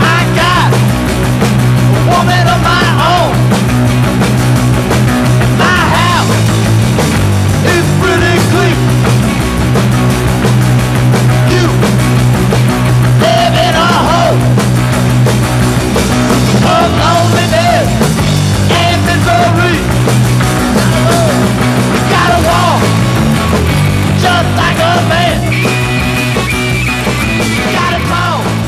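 Loud rock music soundtrack with a melody line that bends in pitch, easing off slightly near the end.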